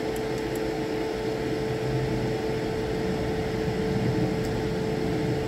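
A steady machine hum: one constant mid-pitched tone over a low rumble, with a few faint light ticks near the start.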